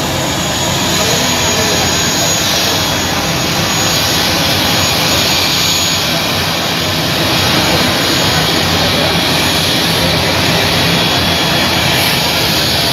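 Small business jet's engines running steadily, a loud even rush with a faint thin high whine over it.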